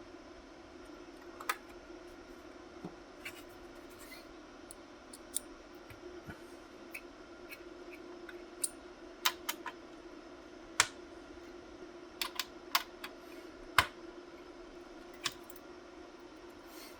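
Irregular sharp clicks and taps of computer hardware being handled, over a steady low hum. The clicks are most frequent in the middle of the stretch.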